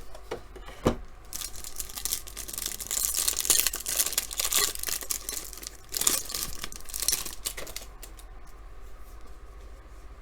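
Packaging of a trading-card hanger box being torn open and crinkled, in two long stretches of tearing and crackling, with a sharp knock just under a second in.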